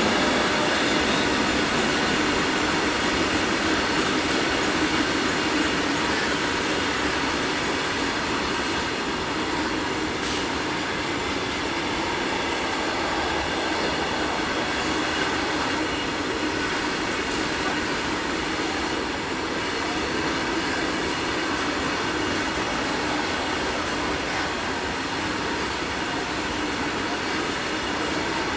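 A train running on the rails: a steady rolling rumble and rattle of wheels on track, with a faint wheel squeal above it. It eases off a little in the first few seconds, then holds steady.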